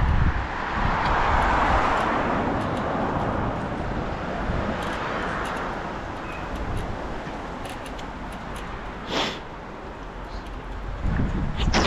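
A car passing on the road: its tyre and engine hiss swells in the first couple of seconds and fades away, with wind rumbling on the microphone at the start. A couple of short sharp noises come later.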